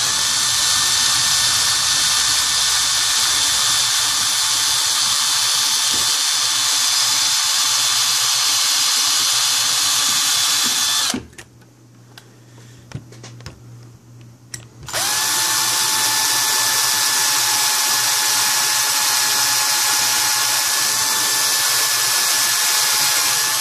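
Cordless drill running steadily as its bit bores into the head of a stripped laptop screw to drill it out. It stops about eleven seconds in, then spins back up about four seconds later and runs on.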